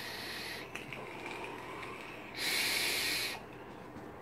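Airy hiss of vapour breaths drawn through a sub-ohm e-cigarette: one ends about half a second in, and a second lasts about a second near the middle.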